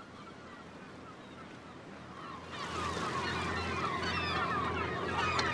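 A flock of herring gulls calling, many overlapping short cries. The calling grows much louder and denser about two and a half seconds in.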